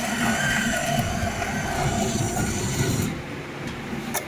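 Bean-to-cup coffee vending machine's grinder running with a loud whine, stopping abruptly about three seconds in, followed by a sharp click near the end.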